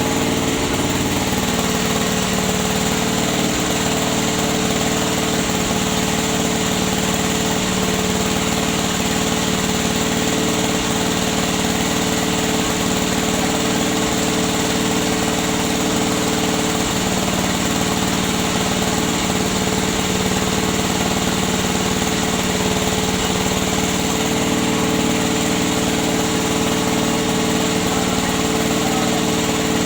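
Small engine running steadily, driving a rubber sheet press machine; a constant drone with a fixed pitch and no change in speed.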